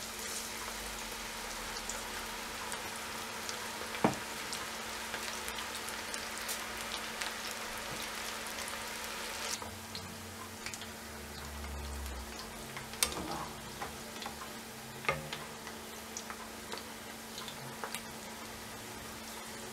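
Onion pakoda (gram-flour onion fritters) deep-frying in hot oil in a kadai: a steady sizzle that eases a little about halfway, with a few sharp clicks.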